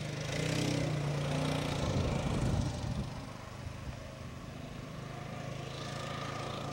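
An ATV's engine running, louder for about the first three seconds, then dropping to a quieter steady hum as the machine moves off.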